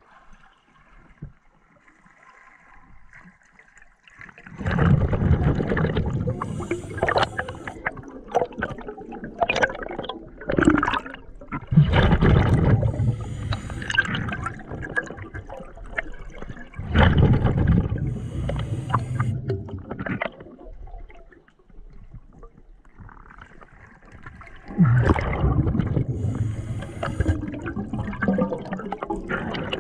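Scuba diver's exhaled bubbles bubbling up from the regulator in about four long bursts, several seconds apart.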